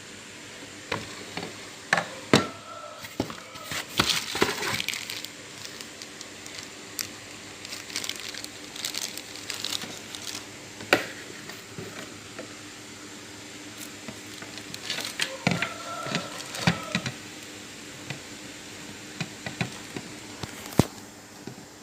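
Scattered sharp clicks and knocks with two stretches of rustling, about four seconds in and again around fifteen seconds, over a faint steady hum.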